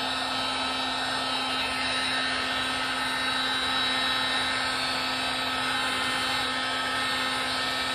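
Milwaukee M18 cordless heat gun (2688-20) running steadily, its fan blowing a constant rush of hot air with a steady whine, heating a decal's adhesive so it will peel off.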